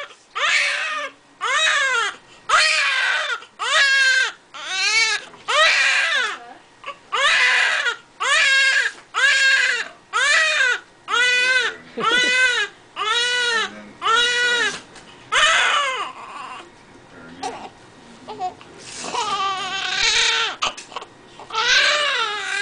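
Newborn baby crying in short, rhythmic wails, about three every two seconds, each rising and then falling in pitch. The crying eases for a few seconds about two-thirds of the way through, then starts again.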